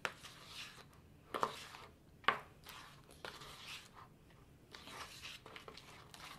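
Metal spoon stirring thick, sticky slime in a bowl: wet squelching and smacking as the glue sets up with the saline activator, with a few sharp clinks of the spoon against the bowl.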